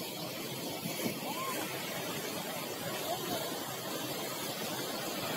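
Monsoon floodwater rushing in a steady, turbulent torrent, with a couple of faint voices calling out over it.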